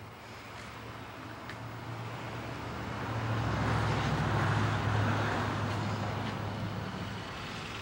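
A car passing by: road noise swells to a peak about four to five seconds in and then fades away.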